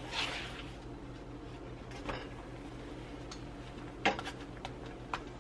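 Slotted nylon spatula scraping and clacking against a nonstick frying pan as it works under a cooking tortilla: a scrape at the start, then a few sharp knocks, the loudest about four seconds in, over a steady low hum.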